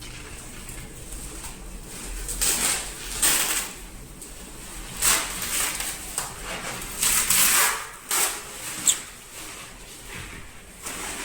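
Packaging being handled: a string of short rustling and scraping noises, irregular and a second or so apart.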